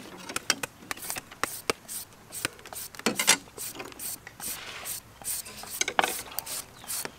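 Hand shredders scraping across green papaya halves, cutting the flesh into strands: a quick, irregular run of short rasping strokes from more than one shredder at once, with a couple of louder strokes about three and six seconds in.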